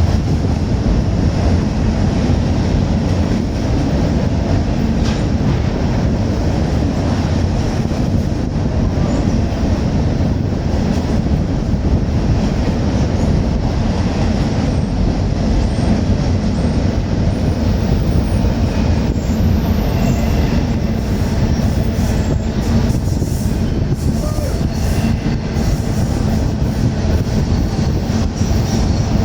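Freight trains rolling past on the rails, a steady heavy rumble of wheels and cars with light wheel squeal in the second half.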